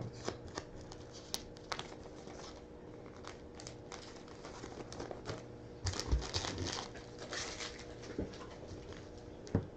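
Trading cards and their pack wrapper being handled: light crinkling and scattered clicks as cards are sorted, busiest a little past the middle.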